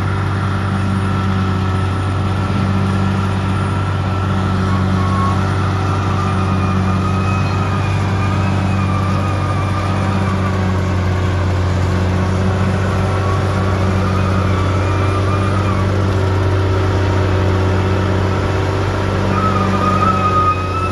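Crawler bulldozer's diesel engine running steadily under work, a deep continuous drone with a faint higher whine over it.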